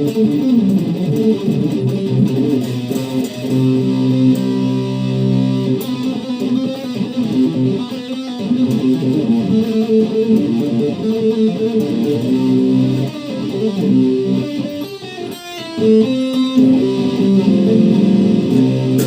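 PRS SE Standard 24 electric guitar played through an overdrive pedal into a Randall combo amp, with sustained driven chords and riffs and a short quieter passage about fifteen seconds in.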